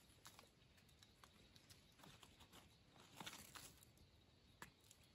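Near silence with a few faint, scattered clicks and rustles of hands working in dry leaf litter, picking and cutting wild mushrooms with a small knife.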